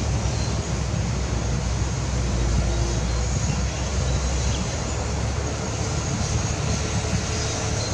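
Diesel engine of heavy construction machinery running steadily, a deep low drone whose note shifts a little past halfway.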